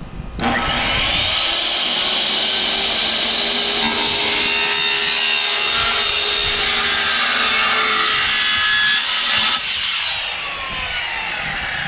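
Corded circular saw fitted with an ordinary wood-ripping blade, cutting through a downspout: it starts suddenly with a rising whine about half a second in, cuts steadily, then is switched off near the end and winds down with a falling whine. The blade is set too shallow and does not get all the way through the downspout.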